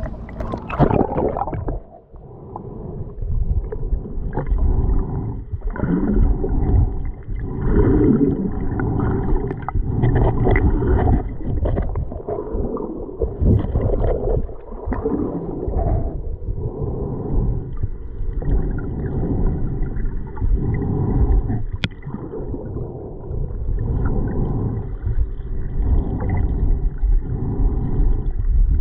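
Muffled underwater sound of lake water moving against an action camera: a splash as it goes under in the first second or two, then a low rumbling gurgle that swells and fades unevenly, with the high sounds cut off.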